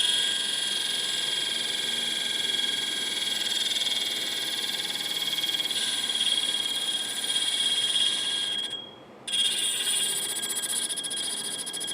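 Baldor carbide grinder's wheel coasting down with a tool held lightly against it: a steady high-pitched scraping hiss with a fast, even pulse, and the contact stays nearly unbroken, showing the wheel runs close to true with little skipping. The contact breaks off briefly about nine seconds in.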